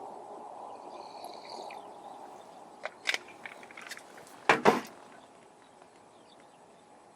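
A few light clicks, then two sharp knocks close together about halfway through, with handling noise as a small fish is released. A steady low rush of wind fades after the knocks.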